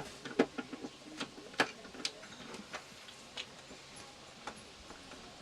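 Irregular sharp clicks and taps of small tools and metal parts being handled while wiring a solar charge controller panel, the loudest about half a second and a second and a half in.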